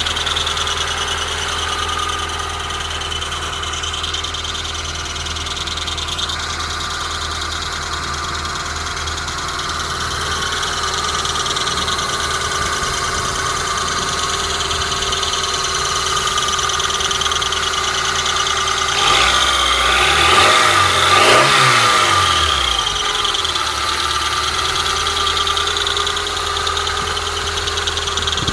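Honda Prelude engine idling cold with a steady high-pitched squeak over the running sound. The squeak is the noise the owner hears only until the engine reaches working temperature. About two-thirds of the way through, the engine is briefly revved, rising and falling in pitch, then settles back to idle.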